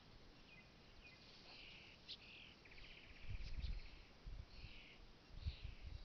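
Small birds chirping, with a fast buzzy trill about three seconds in, over low gusts of wind on the microphone.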